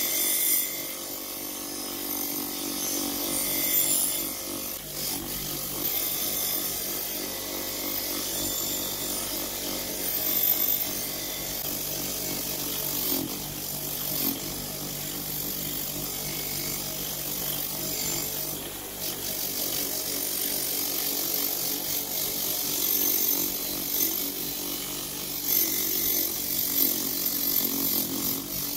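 Bench grinder running steadily while a steel scissor blade is held against its spinning abrasive wheel, with a grinding hiss that swells and fades as the blade is pressed and moved across the wheel.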